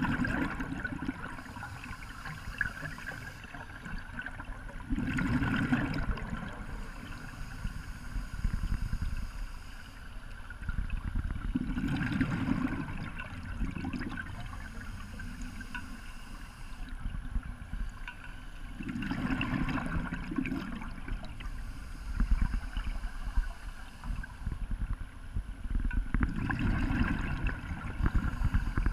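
Scuba divers' exhaled bubbles gurgling out of the regulator exhaust, heard underwater, in a surge about every seven seconds, with a steady low rumble in between.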